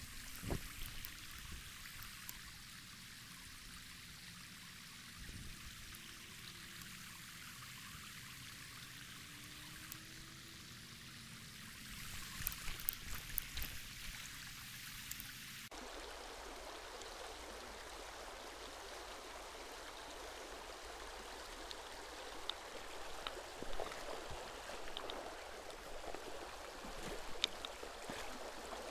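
Shallow river rushing and babbling over stones in a steady wash of water noise, changing character abruptly about halfway through. A few sharp clicks stand out just before the change.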